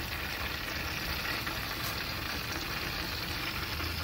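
Hot oil sizzling steadily in a turkey-fryer pot as a whole fried turkey is lifted out and held just above it, with a low steady hum underneath.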